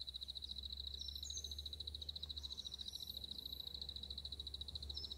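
A small animal's steady, rapidly pulsing high-pitched trill, with a low rumble underneath.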